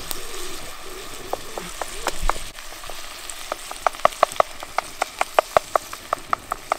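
A wooden spatula stirring and breaking up whole plum tomatoes in a sizzling cast-iron Dutch pot. Its knocks against the pot start sparse and come about four or five a second from about halfway, over a steady sizzle.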